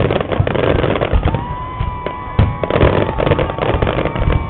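Fireworks going off in quick succession: dense crackling with low booms, and a long steady whistle-like tone running through the middle.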